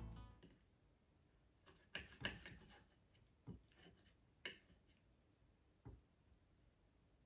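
Music fading out, then near silence broken by about five faint short clicks and taps as fish fillets and paper towel are handled on a plate.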